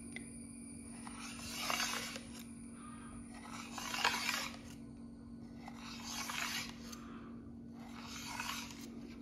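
Knife blade drawn through set coconut agar-agar pudding and scraping along the bottom of the metal plate, in four separate strokes about two seconds apart.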